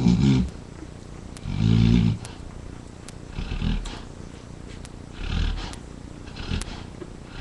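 Adult Labrador retriever snoring in her sleep: five rasping snores about every one and a half to two seconds, the second the loudest and the last ones weaker.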